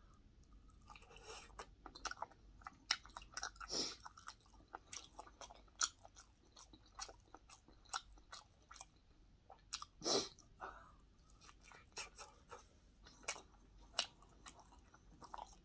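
A man biting into and chewing a breaded fried pork cutlet, with irregular short mouth clicks and bites, and a couple of louder ones about four seconds and ten seconds in.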